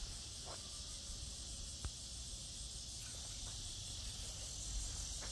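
Insects chirring steadily in a high, even drone with a fast faint pulse, over a low outdoor rumble; a single light click about two seconds in.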